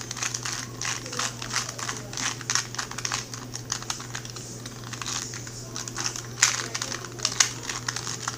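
2x2 Rubik's cube being turned rapidly in a speed-solve: a fast, irregular run of plastic clicks and clacks, with a couple of louder snaps near the end.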